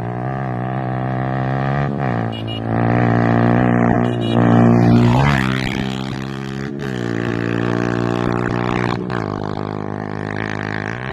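Yamaha R15 v2's single-cylinder four-stroke engine revving through an aftermarket Akrapovic exhaust. The revs climb and drop several times, with the highest rev about five seconds in. A few sharp pops break into the note, the sign of the exhaust misfire.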